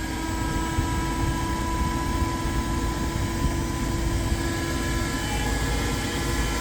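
Certified car vacuum cleaner running at full speed: a steady motor whine over rushing airflow as it sucks up dirt.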